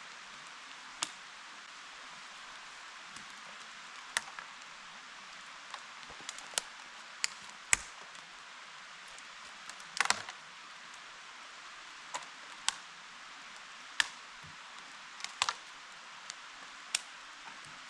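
Steady rain hiss with irregular sharp taps and knocks, about fifteen of them at uneven intervals, a short cluster of them about ten seconds in.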